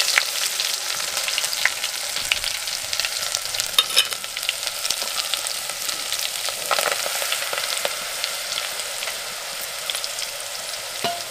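Hot cooking oil sizzling in a metal pot over a wood fire: a steady hiss with many small crackles and pops.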